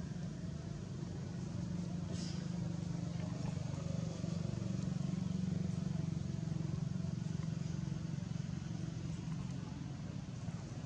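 A steady low hum of an engine running, a little louder around the middle.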